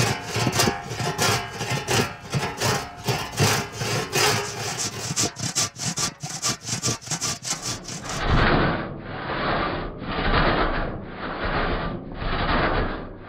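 Large Japanese ooga (maebiki) rip saw, freshly sharpened and set, rasping through wood in quick repeated strokes. About eight seconds in the sound turns duller and the strokes slow to roughly one a second.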